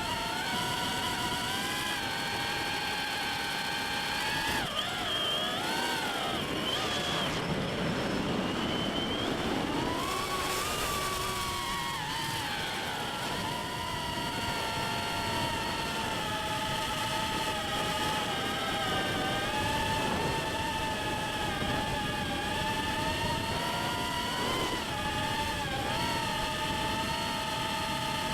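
DarwinFPV CineApe 35 quadcopter's brushless motors and propellers whining in flight. The pitch dips and rises with throttle changes between about 4 and 12 seconds in, then holds fairly steady.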